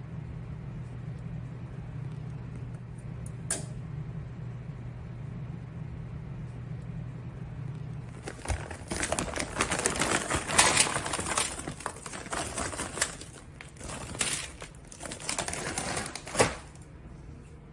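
Frozen breaded chicken tenders being tipped out and spread across a parchment-lined baking sheet: paper crinkling and pieces clattering, with a sharp knock near the end. Before that, a steady low hum with a single click.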